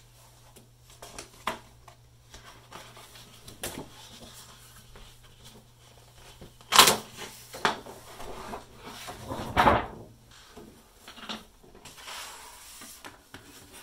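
Paper being handled and laid on a wooden drawing board: scattered knocks and rustles, with a sharp knock about seven seconds in and a cluster of rustling and knocking a few seconds later.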